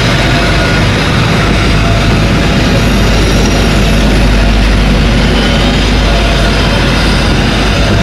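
KA Progo train's passenger coaches passing close by, a loud, steady rumble of wheels on the rails.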